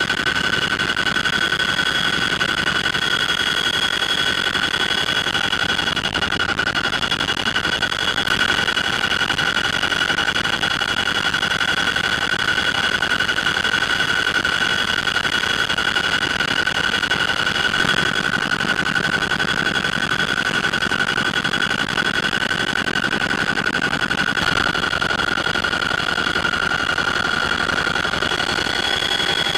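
Cockpit noise of a CH-47 Chinook tandem-rotor helicopter in flight: a steady high whine over a constant rushing engine and rotor noise, unchanging throughout.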